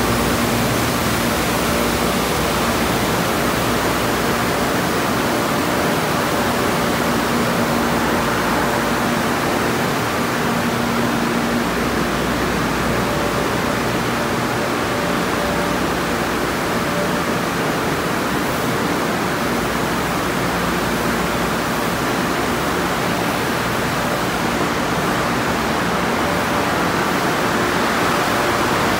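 Car wash tunnel in operation: a steady rush of water spraying onto cars and spinning cloth wrap brushes, with a faint steady hum of pumps and motors under it.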